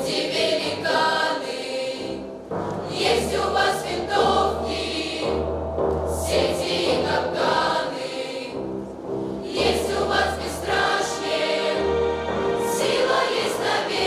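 Mixed youth choir singing sustained chords that change every second or two over an accompaniment with a low bass line.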